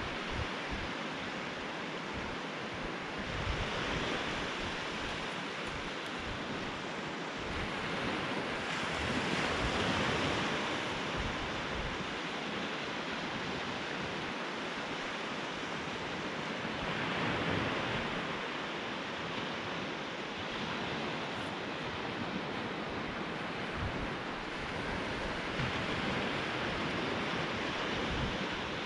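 Small surf breaking and washing over a flat sandy beach, swelling and fading every six to eight seconds, with wind buffeting the microphone.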